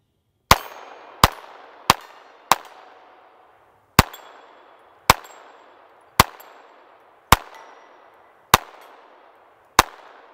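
SIG Sauer P322 .22 LR pistol firing unsuppressed, ten shots: four quick ones about two-thirds of a second apart, then a slower string about one a second, each followed by a short echo.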